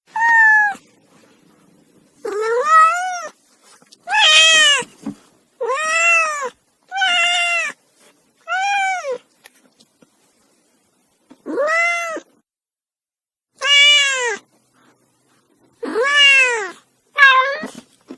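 Domestic cat yowling angrily: about ten drawn-out meows, each rising then falling in pitch, separated by short pauses.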